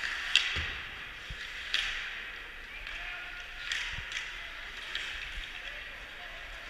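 Ice hockey game on an indoor rink: skates scraping the ice, with several sharp clacks of sticks and puck and a few dull thumps, under a steady rink hiss and faint distant voices.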